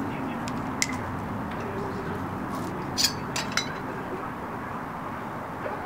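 A few light metallic clicks and taps as a metal square and a marker are set against square steel tubing: one about a second in and a quick cluster of three around the middle, over a steady background hiss.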